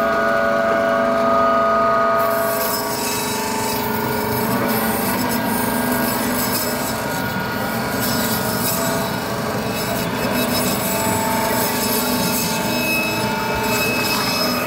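Electric band saw running with a steady hum while its blade cuts lengthwise through a large grass carp, a continuous rasping sawing noise through flesh and bone that turns brighter about two seconds in as the fish is fed into the blade.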